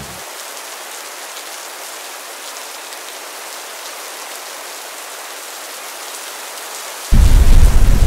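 Steady hiss of falling rain. About seven seconds in, a much louder low rumble cuts in suddenly.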